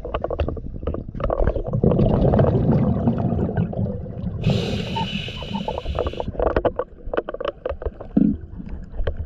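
Scuba breathing heard underwater: a long exhale of rumbling, popping exhaust bubbles from the regulator, then a hissing inhale through the second stage about four and a half seconds in, followed by a few more bubble pops.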